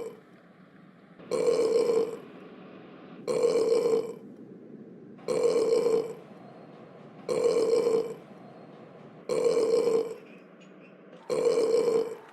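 A loud burp sound effect repeated six times, one about every two seconds, each burp under a second long and identical to the others.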